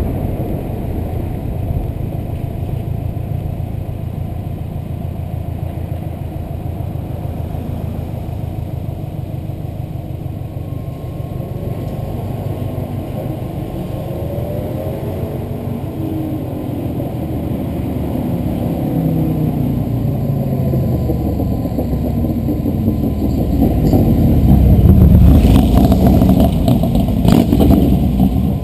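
Turbocharged Subaru WRX flat-four engine pulling under acceleration, its note rising in pitch and growing louder, loudest about twenty-five seconds in. A few short, sharp noises sound near the end.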